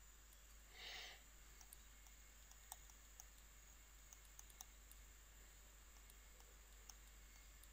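Near silence with faint, scattered light clicks of a stylus tapping on a tablet while writing, and a brief soft hiss about a second in.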